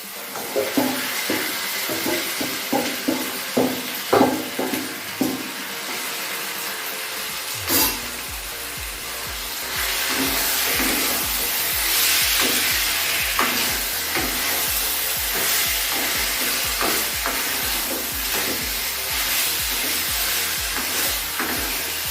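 Marinated chicken frying in hot mustard oil in a kadai, sizzling while a spatula stirs it, knocking and scraping against the pan. The knocks come thick in the first several seconds, and the sizzle grows louder from about ten seconds in.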